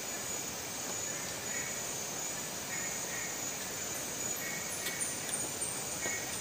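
Insects calling steadily in the background: a constant high-pitched trill with short chirps repeating lower down, and a couple of faint clicks.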